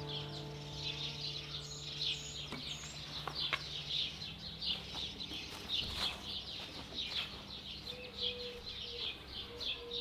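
Small birds chirping rapidly and continuously. The last acoustic-guitar chord rings out and dies away over the first two seconds or so, and a dove starts cooing in short repeated phrases near the end.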